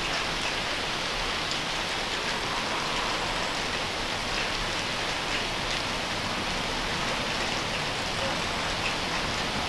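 Steady rain falling, a dense even hiss with scattered individual drops ticking through it.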